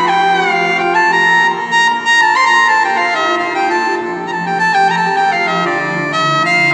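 Yamaha 3000 Oriental arranger keyboard played by hand: a melody in one of its oriental voices, stepping between notes with pitch slides, the clearest a slide down right at the start, over sustained lower notes.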